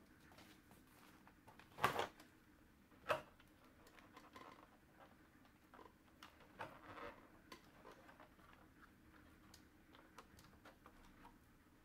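Small handling sounds: light clicks and taps, two louder knocks about two and three seconds in, and a brief rustle midway.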